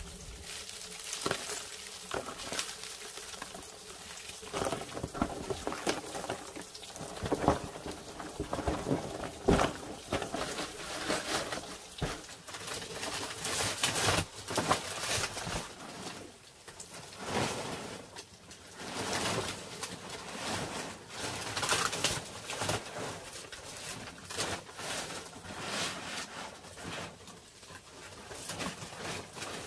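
Irregular knocks, taps and scraping sounds, with a bird cooing.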